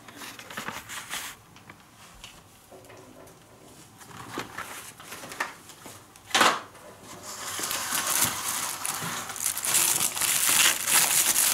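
Fireworks packaging and cardboard carton being handled: faint rustling at first, a sharp brief crackle about six seconds in, then steady louder crinkling and rustling as a hand rummages among the packs in the box.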